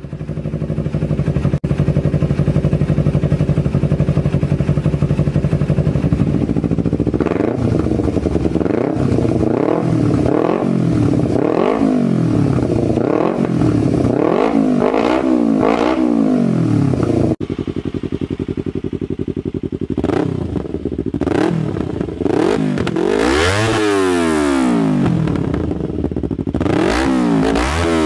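Parallel-twin motorcycle engines with 180-degree crankshafts, a Kawasaki Ninja 250 and then a Yamaha YZF-R25, run through aftermarket exhausts. The engine idles steadily at first, then is blipped again and again, the pitch rising and falling with each rev, with abrupt changes where separate recordings are joined.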